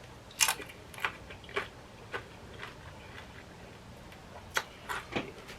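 Crisp, sharp crunches about two a second, then a pause, then three more near the end: tortilla chips crunched while chewing nachos.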